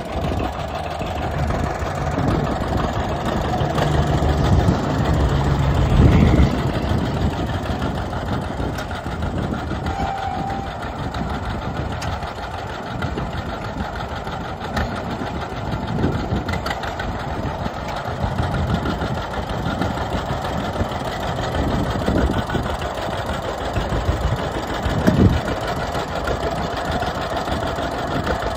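A 1952 John Deere Model B tractor's two-cylinder engine running steadily, briefly louder about six seconds in.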